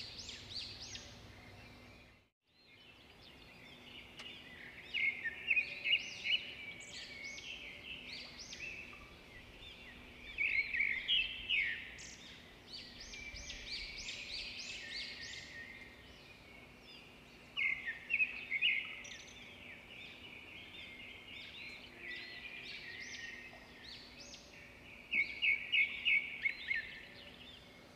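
Small birds chirping, with clusters of quick high notes every few seconds and a short gap about two seconds in.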